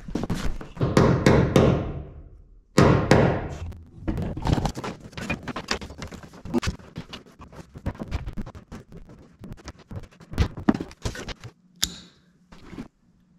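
Electrical cable being dragged and handled against wooden roof trusses: scraping and rustling for the first two seconds and again about three seconds in, then a long irregular run of knocks and thunks that stops near the end.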